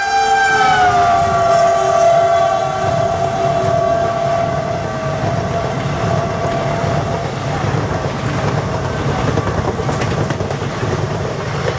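Indian Railways diesel locomotive passing at speed on the next track, sounding one long horn blast whose pitch drops about a second in as it goes by. The horn fades by about seven seconds, leaving the heavy rumble and clatter of express coaches rushing past close by.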